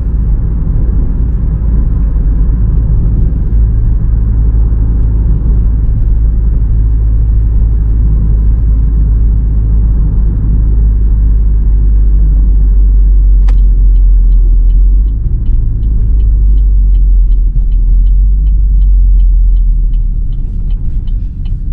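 Steady low rumble of a 2017 GMC Terrain with a Flowmaster Delta exhaust, heard inside the cabin while it rolls downhill at light throttle, engine drone mixed with road noise. About two-thirds of the way through there is a click, then a regular light ticking, about three ticks a second.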